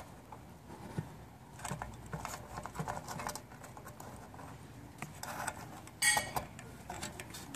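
Scattered light clicks, taps and scrapes of hands fitting small mounting screws and hardware for a light fixture close by, with a louder brief scrape about six seconds in.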